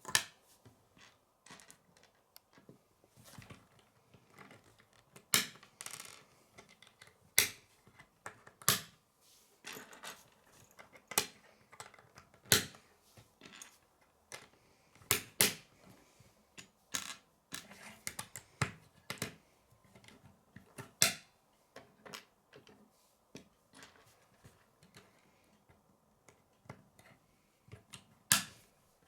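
Plastic K'nex pieces clicking and snapping together as they are handled and fitted, in irregular sharp clicks and taps, the loudest near the start and at about 5, 7, 9, 13, 15, 21 and 28 seconds in.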